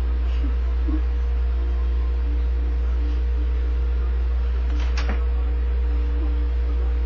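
Steady low hum with a faint steady tone above it, and a single sharp click about five seconds in.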